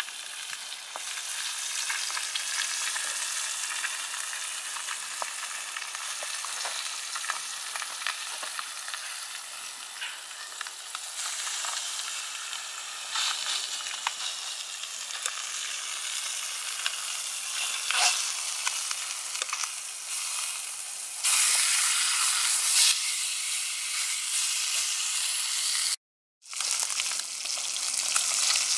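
Fish fillets frying in oil in a steel pan, a steady sizzling hiss with small crackles. It grows louder about three-quarters of the way through and cuts out for a moment near the end.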